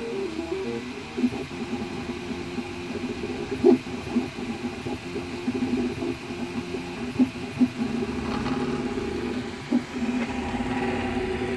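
Prusa i3 MK2S 3D printer's stepper motors running as it prints, a whine that keeps jumping between pitches as the print head moves, with a few sharp clicks.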